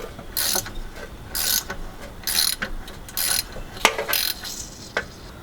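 Hand ratchet wrench clicking as it is swung back and forth to back out bolts on the engine: about five ratcheting strokes, roughly one a second, with a couple of sharp metal clicks near the end.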